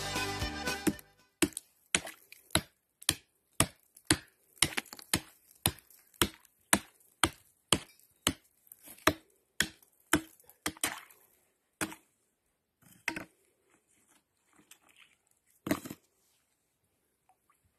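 A short stretch of music ends about a second in. Then a hatchet chops down into ice, sharp strikes about two a second, thinning after about eleven seconds to a few scattered knocks.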